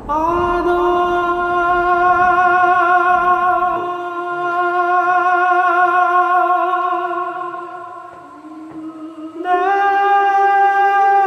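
Background music: a wordless voice sings one long held note with vibrato, fading away about eight seconds in, then swells into a new note near the end. A low rumble underneath dies out in the first few seconds.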